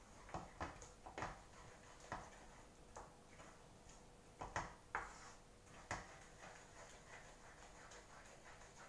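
Wooden spatula scraping and knocking against a wok while stirring, with a dozen or so irregular strokes, some in quick pairs.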